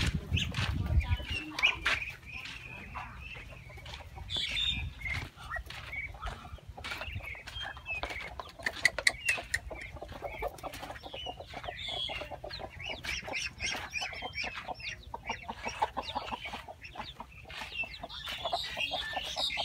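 Domestic fowl calling: a busy mix of clucks and high-pitched peeps in many short, overlapping calls, with small clicks and scuffs among them.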